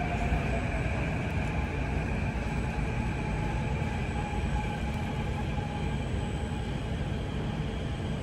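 SMRT CT251 metro train pulling into an underground platform behind platform screen doors: a steady running rumble, with a faint motor whine slowly falling in pitch as it slows.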